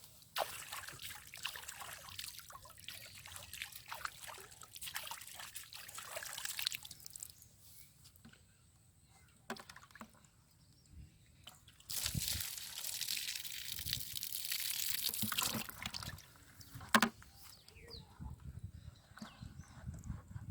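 Water splashing and trickling in two spells, one in the first seven seconds and a louder one from about twelve to sixteen seconds in, with a sharp knock shortly after.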